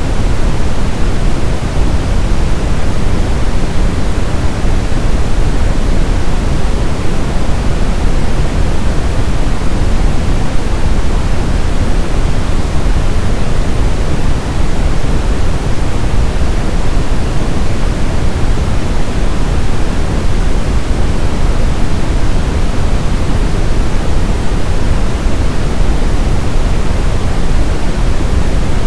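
Brown noise: a steady, unchanging hiss-like rumble weighted toward the low end, with no tones or events.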